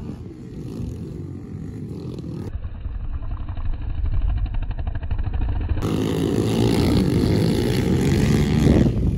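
Kawasaki KLX110 pit bikes' small single-cylinder four-stroke engines revving as they race around a dirt track, getting louder toward the end. For a few seconds in the middle the sound turns duller.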